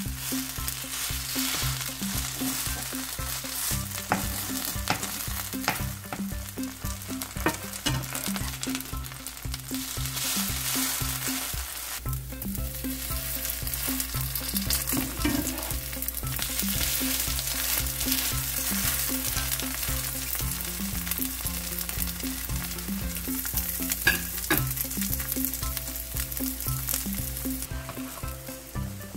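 Mugwort pancake batter frying in hot oil in a nonstick pan, sizzling steadily, with the scrapes and taps of a metal slotted spatula pressing and turning the pancakes. The sizzle grows a little louder about halfway through.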